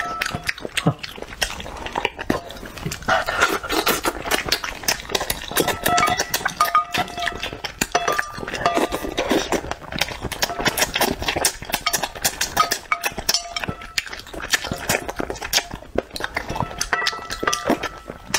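Close-miked eating of spicy bullfrog: chewing, with a dense, irregular run of mouth clicks and smacks. Chopsticks clink against the dishes now and then.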